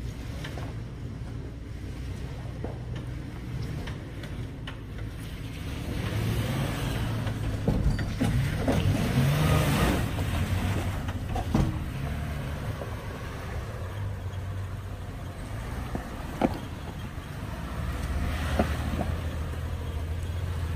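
Toyota 4Runner's 4.0-litre V6 running at low revs while crawling over rocks, the engine rising for a few seconds around the middle of the stretch. A few sharp knocks are heard, most clearly in the later part.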